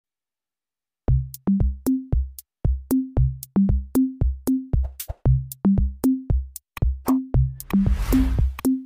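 Upbeat children's background music: a bouncy drum-machine beat with short bass notes that starts about a second in, with a brief hiss-like swell near the end.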